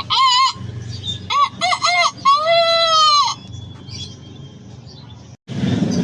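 A man imitating a rooster with his voice: a few short warbling calls, then one long crow about two and a half seconds in. After a brief break near the end, a quick run of short clucking calls begins.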